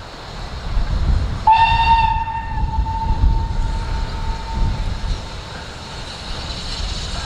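Steam locomotive whistle: one long blast that starts sharply about a second and a half in and fades out a few seconds later, over the low rumble of the approaching engine.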